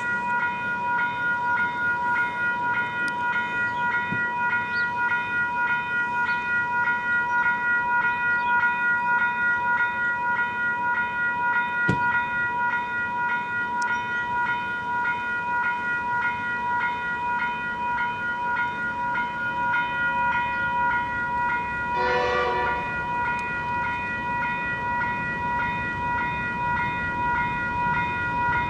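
Level crossing's electronic bells ringing steadily with a pulsing repeat, warning of an approaching train. About 22 seconds in, a short horn blast sounds for about a second, and a low rumble builds near the end.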